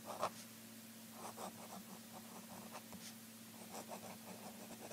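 Writing sound effect: short, irregular scratching strokes of a crayon on paper, with one louder stroke right at the start. A faint steady hum runs underneath.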